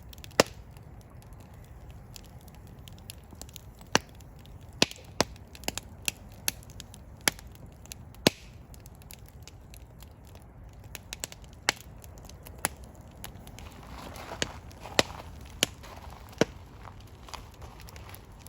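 Wood fire burning in a fireplace: irregular sharp pops and snaps from the burning logs over a steady low rumble of the flames, with a soft hiss swelling briefly about two-thirds of the way through.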